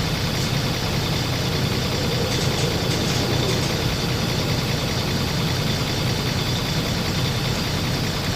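An engine running steadily, a low rumble that doesn't change.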